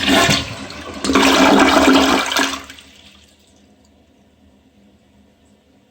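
American Standard Champion 4 Max 1.28-gallon-per-flush toilet on a quick partial flush: a loud rush of water that surges again about a second in, then drops off after about two and a half seconds to a faint steady hiss.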